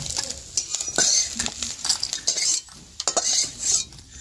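A flat metal spatula scrapes and clinks against a metal kadai as fried small fish are lifted out and tipped into a stainless steel bowl. Short, irregular clatters and scrapes sound over a faint hiss of hot oil.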